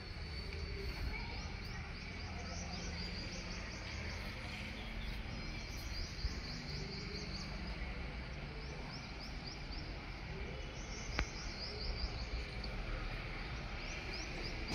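Outdoor ambience: a steady low rumble under clusters of quick, high bird chirps that come and go.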